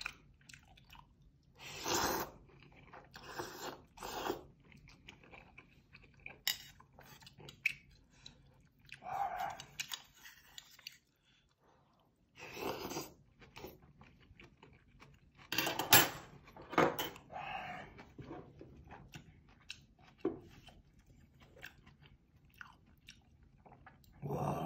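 A person eating close to the microphone: slurping udon noodles in kimchi stew and chewing, in separate bursts a few seconds apart, the loudest about two-thirds of the way through.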